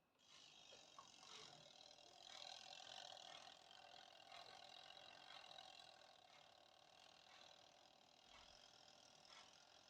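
Orbegozo BF 1030 floor fan running faintly: an airflow hiss with steady motor tones that comes in abruptly at the start, swells over the first few seconds, then eases a little.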